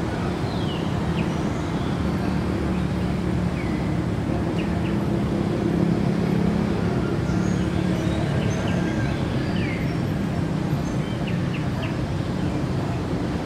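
A low, steady engine hum that swells through the middle, with small birds chirping now and then.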